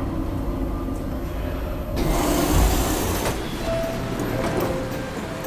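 Passenger elevator car running with a low rumble, then its stainless-steel doors sliding open with a rushing, rubbing noise about two seconds in that lasts just over a second.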